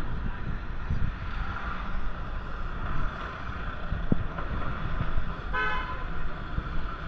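A single short car horn toot about two-thirds of the way in, over a steady low rumble of city traffic. A brief low thump comes about four seconds in.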